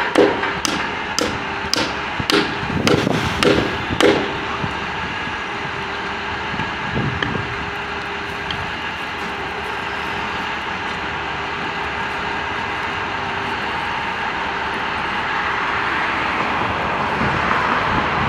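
A run of sharp hammer blows on the wooden utility pole, about two a second for the first four seconds, over the steady running of a utility truck's diesel engine, which carries on alone once the strikes stop.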